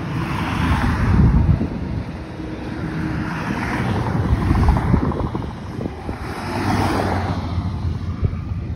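Wind rumbling on the microphone of a moving bicycle, with cars on the road alongside whooshing past. Three of them swell and fade, about a second in, near the middle and near the end.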